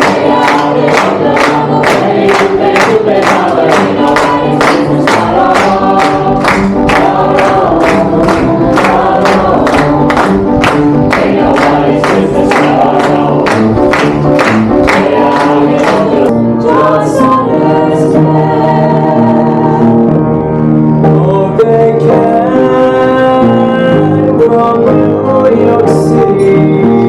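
Music with singing voices over a steady beat of about two strokes a second. About two-thirds of the way through, the beat drops out, leaving sustained singing and instruments.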